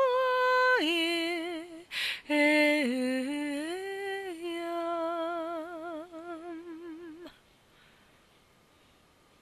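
A woman's unaccompanied voice singing a wordless shamanic chant: long held notes with a wavering vibrato, gliding down from one to the next, with a breath taken about two seconds in. The chant grows fainter and stops about seven seconds in.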